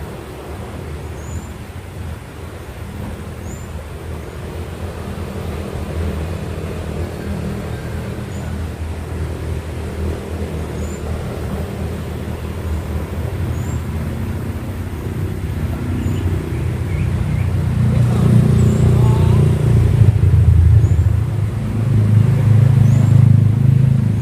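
A motor engine running, growing steadily louder over the last several seconds. Short high chirps repeat every second or two above it.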